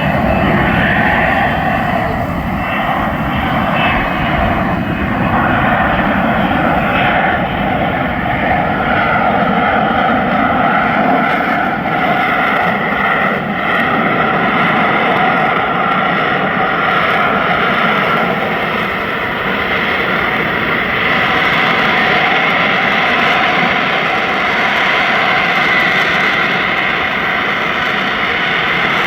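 A US Marine Corps F-35B's jet engine running loud and steady throughout, a dense roar with several high whining tones held at an even pitch.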